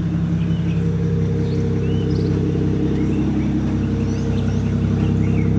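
A car engine idling steadily, a low even hum that holds without change. Faint bird chirps sound here and there above it.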